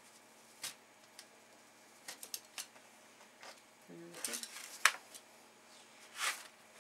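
A craft blade and fingers working on a diamond painting canvas: scattered light clicks and taps, a sharper tick a little before five seconds in, and a short rub near the end as the cut is pressed flat.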